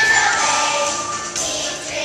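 Music with singing voices, the song the children on stage are performing to.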